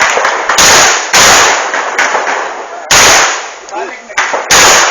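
Gunshots: four loud reports at uneven spacing, the first two close together about half a second apart, each with a short decaying tail.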